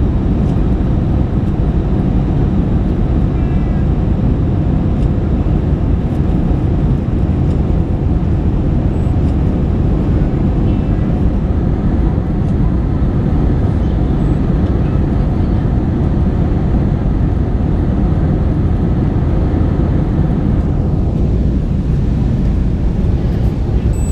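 Steady low rumble of an airliner's engines and rushing air as heard inside the cabin, holding an even level throughout.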